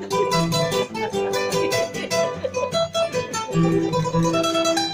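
Two acoustic guitars playing a waltz introduction: a quick picked melody on the higher guitar over plucked chords and bass notes.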